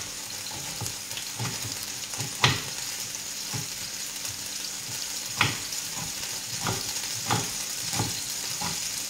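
Knife slicing an artichoke against a wooden cutting board, with short knocks about once a second, the loudest about two and a half seconds in. Underneath, a steady sizzle from a pan of oil, garlic and onion frying on the stove.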